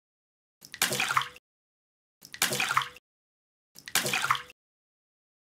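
Three identical splashes about a second and a half apart, made by small toy figures dropping into a glass bowl of water, with dead silence between them.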